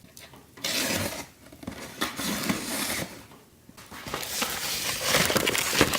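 A parcel being opened and its packaging handled, rustling and scraping in two long stretches with a short lull between.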